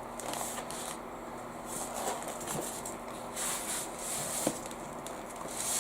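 Faint rustling in short spells, with a few light taps and clicks, from handling a PC case's packaging while unboxing it.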